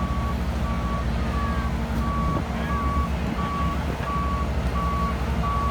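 Skid steer backing up: its reverse alarm beeps at a single steady pitch, a little under one and a half beeps a second, over the steady rumble of its diesel engine.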